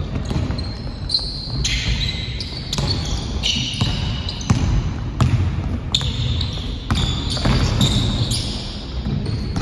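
Basketball game on a hardwood court: the ball bouncing as it is dribbled, with many sharp knocks, and sneakers giving short high squeaks on the floor.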